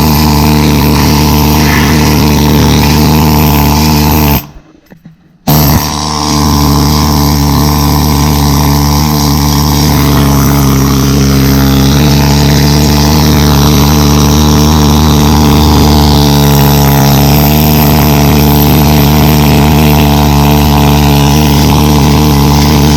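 Power tool running hard against the steel of a 1966 VW Beetle's chassis, cleaning it back to bare metal for a new floor pan. It runs steadily, stops for about a second some four seconds in, then starts again.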